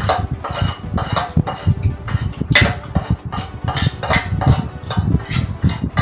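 Cutlery clinking and scraping against plates and bowls during a meal of noodles, in irregular short clicks.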